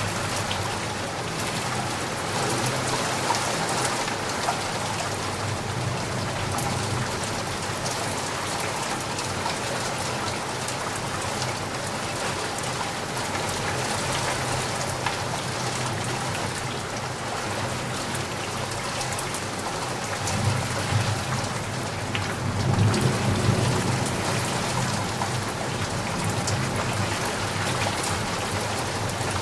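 Steady rain falling on a surface, a dense hiss of drops with scattered sharper drop ticks. About two-thirds of the way in, a low rumble of thunder swells and fades.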